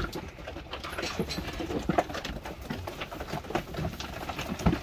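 Boer goats' hooves clattering and knocking on a slatted wooden pen floor as the herd is driven across the pen, with a couple of louder knocks, one about two seconds in and one near the end.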